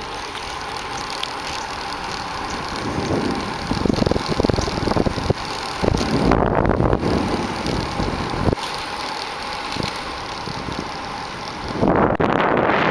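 Suzuki DR650 single-cylinder dual-sport motorcycle running on the road, engine noise mixed with wind rushing over the microphone. The wind noise grows louder near the end.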